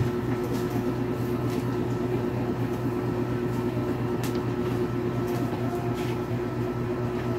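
Steady electrical hum of a running appliance motor, with a sharp click right at the start and a few faint ticks later on.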